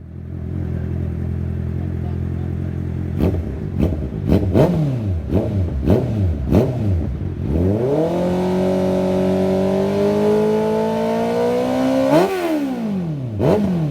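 Honda CB650R's inline-four engine through an aftermarket full-system exhaust: idling steadily, then blipped sharply about six times in quick succession, then held at a raised rpm that climbs slowly for about four seconds, ending in one hard rev that drops back, with more quick blips near the end.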